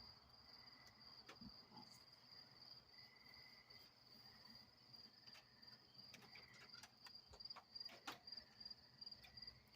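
Crickets trilling steadily, one high continuous pulsing trill with a lower trill coming and going. Scattered faint clicks, more frequent in the second half.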